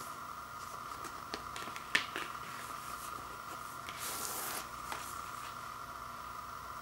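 A paper record sleeve being handled: a few small clicks and a sharp tap about two seconds in, then a brief papery swish about four seconds in as a 12-inch vinyl LP slides out of its black paper inner sleeve.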